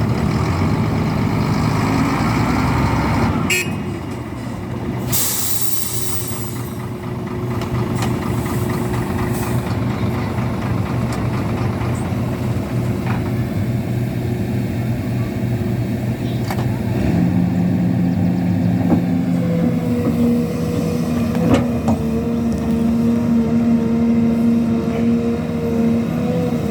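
Heavy diesel earthmoving machinery running: excavator and dump truck engines at work loading a truck. There is a short hiss of air about five seconds in, and the engine note steps up to a higher, steady pitch about two-thirds of the way through.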